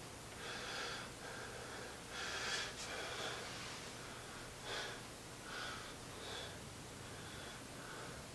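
A man breathing hard through his nose and mouth, recovering from a set of exercises: several audible breaths, roughly one every second or so.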